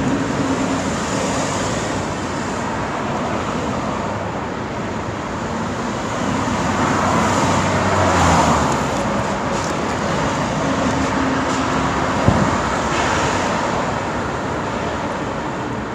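Busy road traffic: a steady stream of cars and motorbikes passing, tyre noise and engine hum blending together, with one vehicle passing closer and louder about halfway through. A single short thump about three quarters of the way in.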